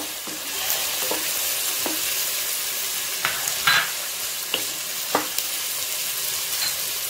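Chopped onions and green chillies sizzling in hot oil while a spatula stirs them, scraping and knocking against the pan several times, loudest about halfway through.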